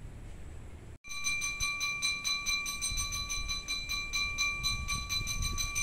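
A bakso street vendor's ting-ting signal, a spoon tapped rapidly on a bowl: a bright ringing clink struck about five or six times a second, starting suddenly about a second in.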